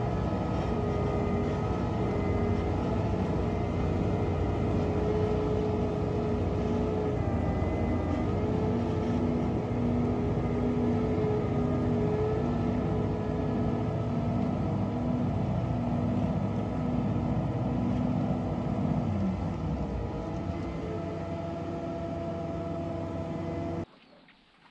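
Diesel engine and hydraulics of a JCB telescopic wheel loader working a silage clamp with a grab: a steady engine drone with a held whine on top. About three-quarters through one tone drops away and the engine note eases, and the sound cuts off abruptly at the very end.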